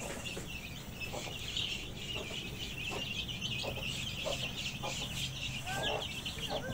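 Chickens clucking in short, scattered calls over a dense, continuous high-pitched chirping chorus.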